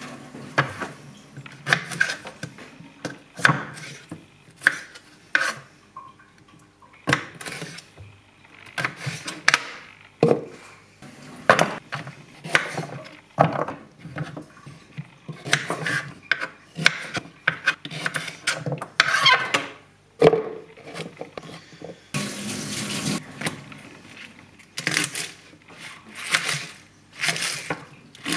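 Kitchen knife chopping carrots and kale on a wooden cutting board: irregular knocks, some in quick runs, with vegetables set into a plastic blender cup. A couple of seconds of steady rushing noise come late on.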